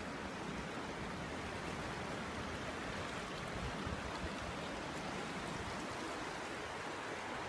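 Steady rushing of river current flowing past a kayak and around wooden bridge pilings, with wind buffeting the microphone in low, uneven gusts.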